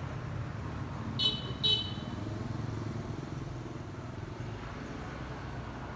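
Two short, high-pitched vehicle horn beeps about half a second apart, over a steady low engine and traffic rumble.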